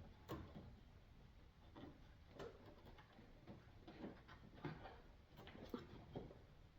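Faint, irregular clicks and light knocks, about ten over several seconds, from hands working the plastic coolant hose connectors and clamps in the engine bay.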